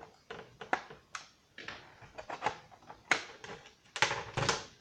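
Irregular plastic clicks and knocks as the cover is pried off an EST Genesis horn strobe, with the sharpest clicks about three and four seconds in.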